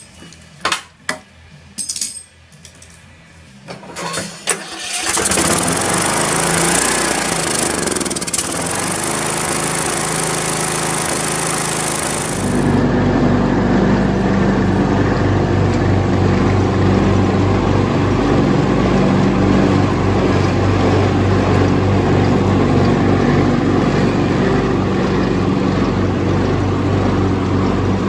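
A few light clinks of parts being refitted, then about five seconds in the single-cylinder engine of a Troy-Bilt riding mower comes in loud, running again after its carburetor was cleaned. From about twelve seconds it runs steadily as the mower is driven across the lawn.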